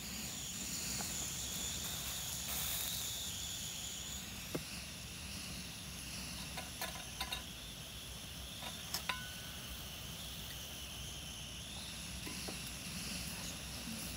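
Insects chirring steadily at a high pitch, with a few faint clicks about halfway through.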